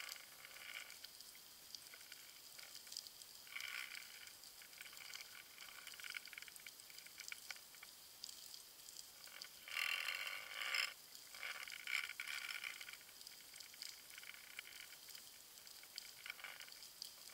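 Faint crackling and hiss picked up underwater by a camera lying on the seabed, with a few louder rushing bursts lasting about a second each, the strongest around the middle.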